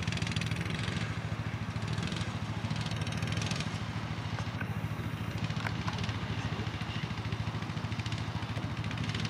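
An engine running steadily at constant speed, a low even hum.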